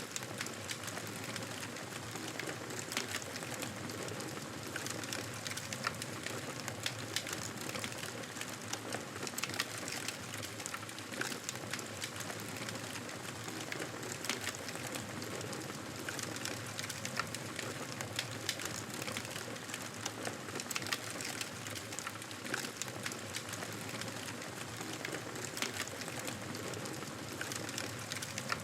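Wood fire burning, with a steady hiss and frequent, irregular sharp crackles and pops.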